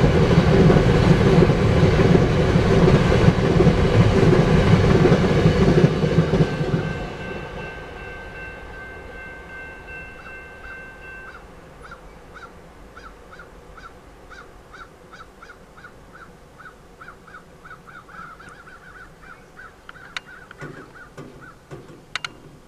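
Empty railroad tank cars rolling past with wheel clatter for the first several seconds, fading as the end of the train clears. The grade-crossing bell then keeps dinging in steady, evenly spaced strikes, with a few sharp clicks near the end as the crossing gates rise.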